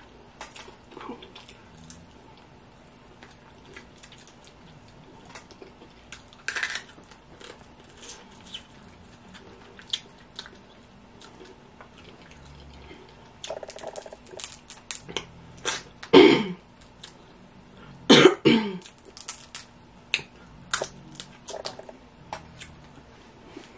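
Close-up eating sounds of steamed blue crab being picked apart by hand and eaten: small wet clicks of shell and meat, smacking and chewing. Three louder mouth noises stand out, one about a quarter of the way in and two close together past the middle.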